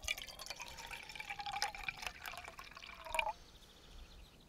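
Coffee poured from a glass jar into an enamel camping mug: a splashing trickle with a faint ringing tone from the filling mug. It stops about three seconds in.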